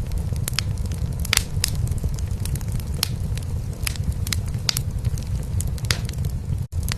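A cat purring in a steady low rumble, layered with a wood fire crackling in a fireplace in frequent sharp pops. The sound cuts out for an instant near the end.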